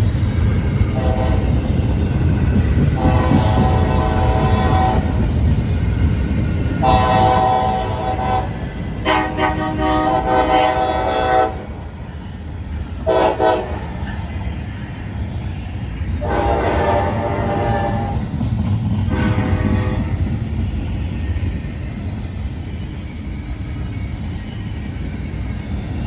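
CSX freight locomotive air horn sounding a series of blasts, among them a long-long-short-long grade-crossing signal, with the horn going quiet a few seconds before the end. Under the horn, the locomotives' diesel engines and the rolling train keep up a steady rumble.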